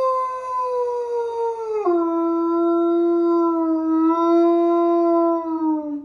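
A large white dog howling: one long, unbroken howl that drops suddenly in pitch about two seconds in, holds the lower note steadily, then sinks a little as it ends.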